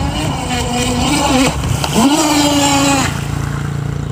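Electric motor of a 3S battery RC boat whining at speed over the water, its pitch dipping and climbing with the throttle. It spools up sharply about two seconds in, holds for about a second, then drops back to a lower steady hum.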